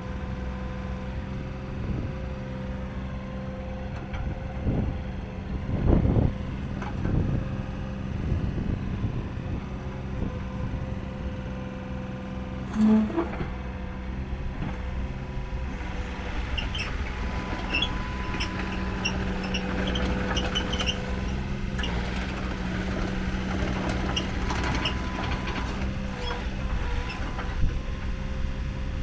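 Komatsu PC10-7 mini excavator's 18 hp diesel running steadily as the boom, arm and bucket are worked hydraulically. Two louder clunks come in the first half, and lighter clanks in the second half.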